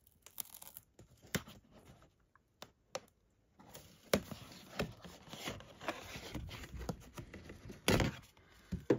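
Fingers picking and scraping at a spot of glue on a cardboard box set, with irregular scratchy rubbing and light knocks as the box is handled. A sharper knock comes near the end.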